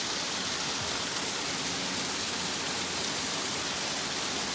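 Small waterfall splashing down rocks into a stream: a steady hiss of falling water.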